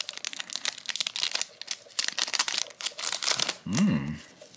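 Metallic foil wrapper of a trading-card pack crinkling and tearing as gloved hands rip it open and pull the cards out, a dense run of small crackles. Near the end, a person gives a short hum.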